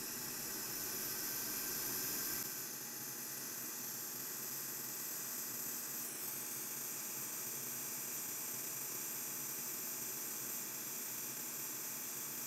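Hot air rework station blowing a steady hiss of air through its nozzle onto a small surface-mount capacitor, reflowing the solder on its pads.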